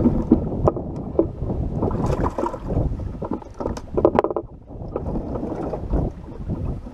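Wind buffeting the microphone and choppy water slapping against a bass boat's hull, with scattered knocks on the boat.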